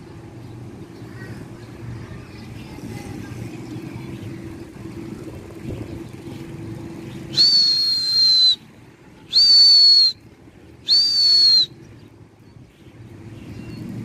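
Three loud, shrill whistle blasts, each about a second long or less. Each holds one high pitch that dips slightly at the end, and they come in a row over a faint steady background rumble.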